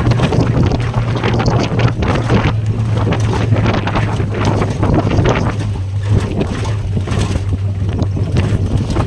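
Jeep engine running steadily with a constant low hum while under way, with wind buffeting the microphone.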